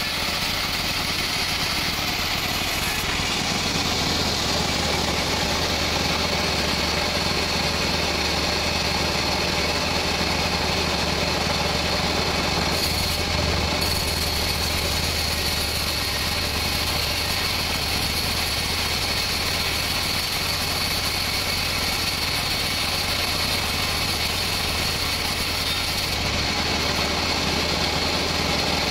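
Band sawmill running steadily while ripping a teak beam, with a constant low hum and a high, even whine from the blade.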